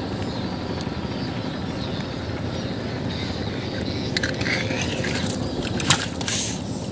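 Nylon gill net rustling and crackling as it is handled, with a few sharp rustles about four and six seconds in, over a steady low background rumble.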